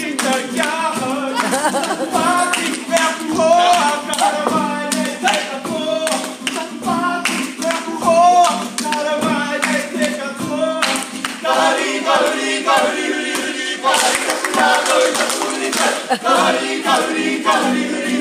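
Several voices singing a lively song together, accompanied by a strummed acoustic guitar, with hand claps through it. The claps grow busier in the last few seconds.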